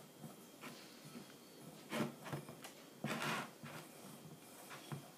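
Hands kneading flour and beaten egg into a dough in a glass bowl: irregular rubbing and brushing, with a sharp tap about two seconds in and a longer rustle about three seconds in.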